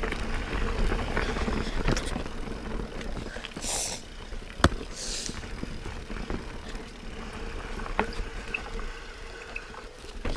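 Specialized Enduro Elite 29 mountain bike descending a rough dirt-and-rock trail: tyres rumbling over the ground with knocks and rattles from the bike, a sharp knock about four and a half seconds in and another near eight seconds, and two short hisses in between.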